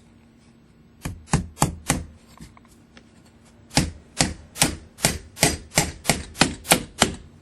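Hammer driving a nail through a drilled hole in a metal support clip: four quick strikes, a pause, then a steady run of about a dozen strikes, roughly three a second.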